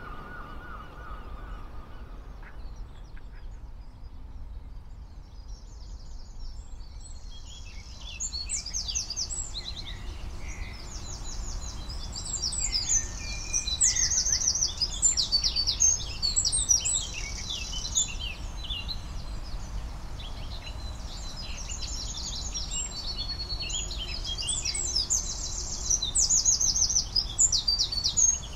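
Dawn chorus of songbirds: many birds singing rapid chirping trills and warbling phrases over a steady low background rumble. The song is sparse for the first several seconds, then dense and louder from about eight seconds in.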